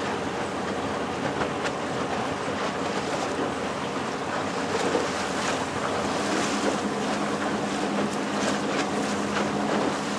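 Small boat's motor running steadily, its hum growing a little stronger about six seconds in, under a wash of water and wind noise on the microphone.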